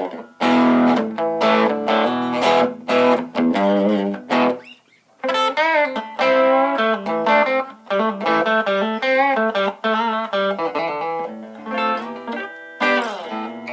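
Electric guitar (a Stratocaster on its DiMarzio Virtual Solo stacked humbucker) played through a Blues Driver overdrive pedal for light crunch: a few strummed chords, then after a brief pause single-note lead lines with string bends and vibrato, ending on another chord.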